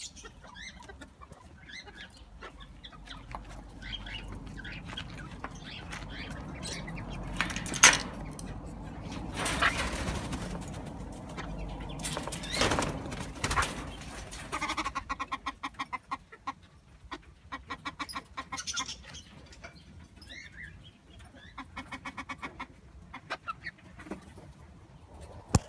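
Captive fowl clucking in quick runs of pitched calls, with wing flapping in the middle.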